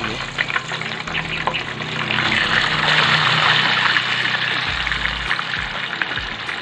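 Pork belly slabs frying in hot oil in a wok, a dense sizzle and crackle that swells about two seconds in as more pieces go into the oil. This is the second fry, done to crisp the pork for lechon kawali.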